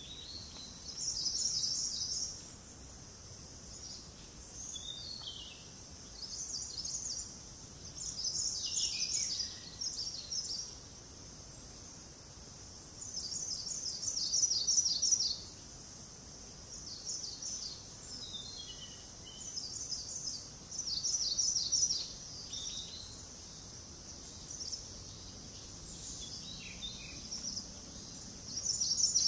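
Hill-forest ambience of birds and insects: bursts of rapid, high-pitched trilling every few seconds over a steady high insect drone, with a few short falling bird calls.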